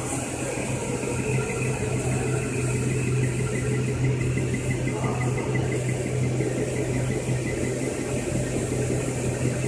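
Electrodynamic vibration shaker driving a horizontal slip table, a steady low hum with an even noise over it.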